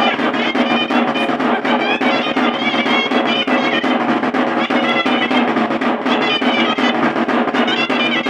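Chirimía, a double-reed shawm, playing a wavering, ornamented melody over a fast, steady beat on a caja drum: traditional Tastoan dance music.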